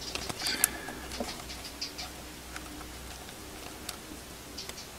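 Faint small metallic clicks and ticks of fingers unscrewing a small nut from the wire terminal post on the side of a Renault 4's Ducellier distributor, with a low steady hum under them.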